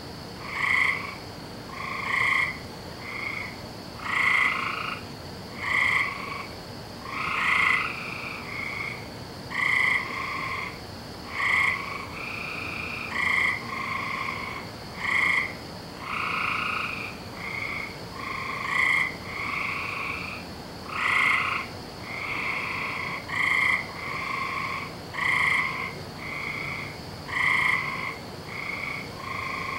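A chorus of frogs croaking. Short calls, each about half a second long, come every second or two, with several frogs overlapping and answering one another. A faint steady high-pitched hiss runs underneath.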